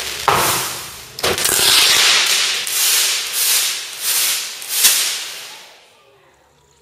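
Indoor stage pyrotechnics. The steady hiss of a spark fountain stops with a sharp bang, then a string of hissing bursts about every half second follows as a shower of sparks rains down. One last sharp bang about five seconds in, then the sound dies away.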